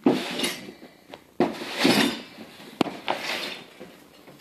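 Metal parts clattering and scraping in three bursts, with a single sharp click between the second and third.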